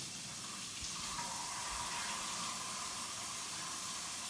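Kitchen tap running steadily into the sink while a microfibre cleaning cloth is wetted under the stream.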